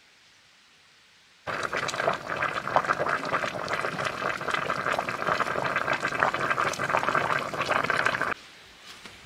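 Food boiling in a lidded clay pot: a dense bubbling full of small pops, starting suddenly about a second and a half in and stopping abruptly near the end.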